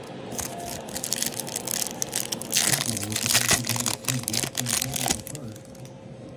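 Foil wrapper of a Topps Chrome baseball card pack being torn open and crinkled by hand: a dense run of crackling that is loudest about two and a half to three and a half seconds in and stops about five seconds in.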